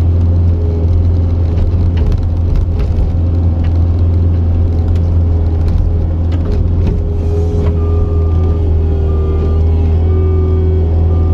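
Cat 279C compact track loader's diesel engine running steadily under work, heard from the machine, with scattered light knocks. From about eight seconds in, a short beep repeats about twice a second.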